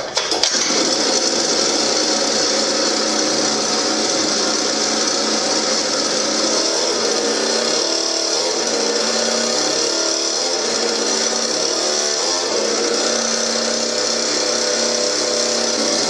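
Small 50cc mini dirt bike engine running steadily. It starts about half a second in.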